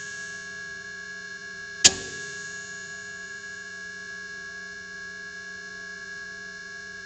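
Failing fluorescent tube lamp buzzing with a steady electrical hum, with one sharp click about two seconds in as it flickers.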